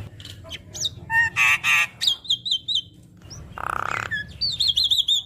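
Javan myna (jalak kebo) singing a varied song packed with imitated phrases: sharp clicks, a harsh rattling trill, a buzzy stretch, and quick runs of repeated high whistled notes.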